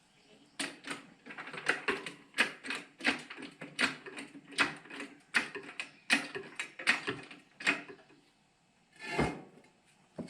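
Sharp mechanical clicks and knocks, irregular at about two or three a second, then a short rushing swell near the end.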